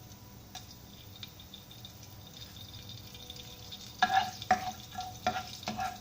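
Cumin seeds, cinnamon and cloves faintly sizzling in hot oil in a wok. From about four seconds in, a utensil knocks against the wok about six times as the spices are stirred.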